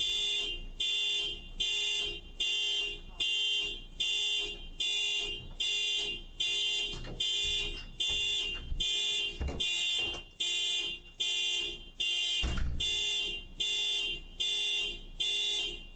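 Car alarm beeping: a high-pitched beep repeating evenly about two and a half times a second, set off as the car is broken into.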